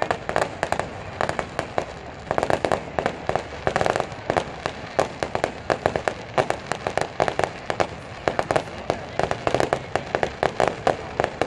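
Aerial fireworks bursting: clusters of rapid sharp bangs and pops, several a second, with short gaps between the clusters.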